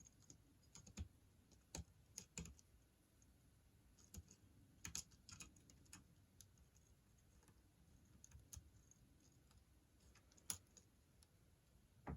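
Faint, irregular small metallic clicks of a lock pick and tension tool working the pins inside a padlock.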